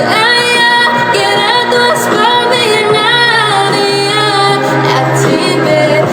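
Music with a woman singing, holding and gliding between sustained notes over a backing track.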